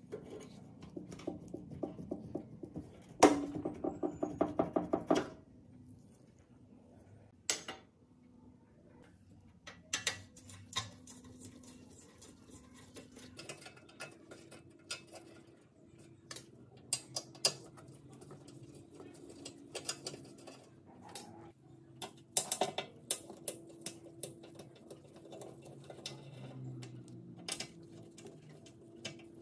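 Screwdriver clicking and scraping against the rusty metal housing and screws of an Ibico comb binding machine as it is taken apart, with a quick rattling run of ticks a few seconds in and scattered sharp metal clicks after.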